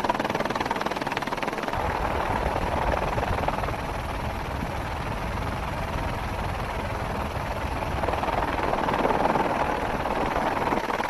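Helicopter engine and rotor noise heard from on board, a steady drone.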